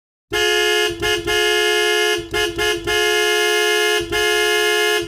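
Two-note car horn honking in a pattern of long and short blasts, with a quick run of short toots in the middle.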